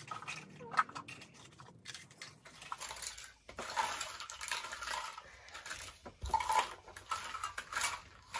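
Small plastic toy dishes, cups and toy food pieces clicking and clattering as they are picked up and set down: an irregular run of light clicks and rattles.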